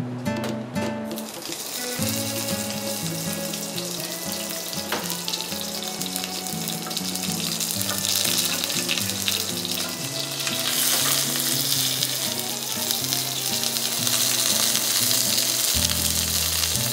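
Oil sizzling in a frying pan as a cabbage-wrapped Iberico pork roll sears. The sizzle starts about a second in and grows louder past the middle. Background music with a stepping melody plays underneath.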